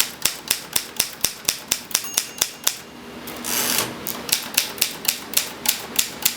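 Manual typewriter keys struck one after another, about four sharp clacks a second, each key tried in turn to check that none sticks. About halfway through, a brief pause and a short noisy rush, then the clacking picks up again.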